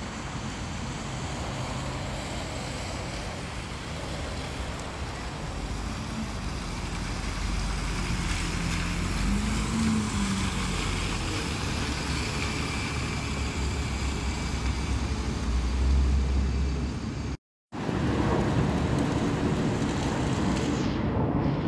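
Diesel buses running close by on a wet road: a steady engine rumble that grows louder and deeper through the middle, over a hiss of traffic and tyres on wet tarmac. The sound drops out for a moment near the end, then picks up again with wind buffeting the microphone while an Optare Solo single-deck bus pulls in.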